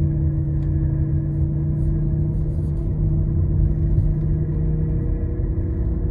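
Failed wheel bearing on a 2022 Mitsubishi droning loudly while driving, a steady hum over tyre and road rumble that drops away about five seconds in. The drone changes as the car sways side to side, the sign of a worn-out wheel bearing.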